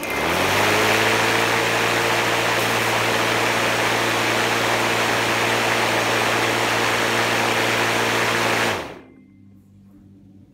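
Makita DLM431 36-volt cordless lawn mower's electric motor and blade starting up, spinning free without cutting. It rises to speed within half a second, runs with a steady hum and a strong hiss, then winds down quickly and stops after about nine seconds.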